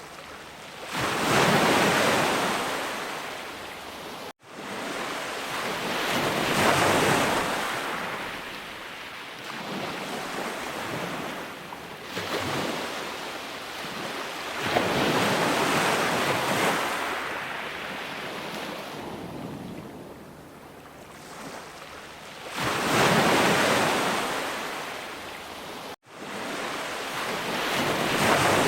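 Sea waves breaking and washing up the shore, the surf swelling and fading in rushing surges every few seconds. The sound drops out for an instant twice.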